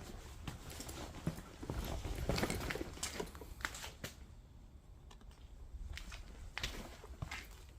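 Footsteps with scattered small knocks, clicks and rustles, busiest about two to three seconds in, over a low rumble.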